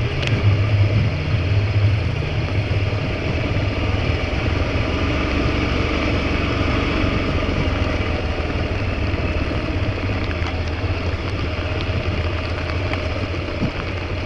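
A motor vehicle's engine running steadily: a continuous low rumble under an even wash of noise.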